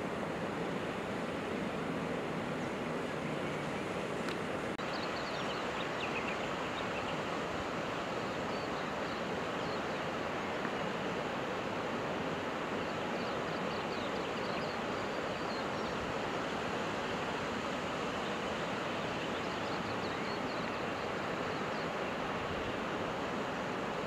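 Steady rushing noise, with faint short high chirps from about five seconds in.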